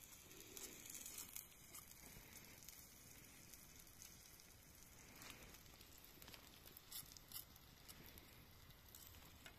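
Near silence: a faint steady hiss with a few soft, scattered crackles and clicks.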